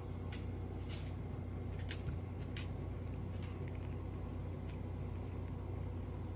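A cat licking and pawing at a treat packet held in a hand, making faint, irregular little clicks, smacks and rustles over a steady low room hum.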